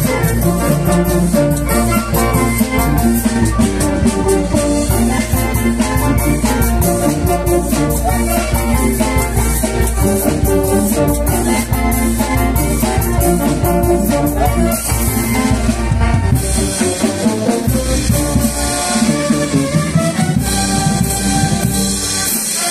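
Brass band playing up close: sousaphones and tubas on the bass line, trombones and trumpets on the tune, with percussion keeping a steady beat. The deep bass drops out briefly a couple of times in the latter part.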